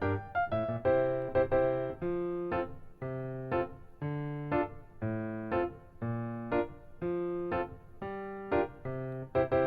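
Background music: gentle piano playing chords about once a second, each note struck and left to ring and fade.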